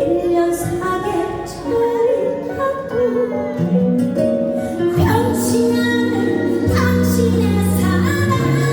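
A female singer performing a Korean trot song over instrumental accompaniment with a steady bass line.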